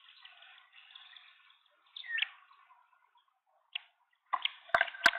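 Green wood hoopoe moving about inside a wooden nest box: faint scratching and rustling, then a sudden flurry of rustles and sharp knocks against the wood near the end as it flaps its wings in the box.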